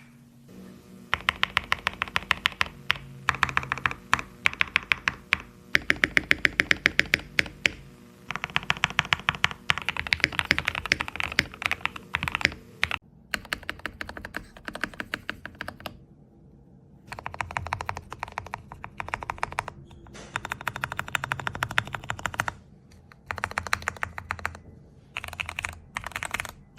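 Custom mechanical keyboard being typed on in fast runs of keystrokes, clicks and clacks in bursts of a second or few with short pauses between, a sound test of the keyboard with TX AP PCB-mount stabilisers.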